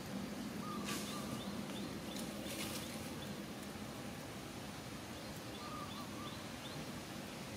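Outdoor ambience: a steady background hiss with faint high chirps in quick series and two brief whistled notes, about a second in and about six seconds in.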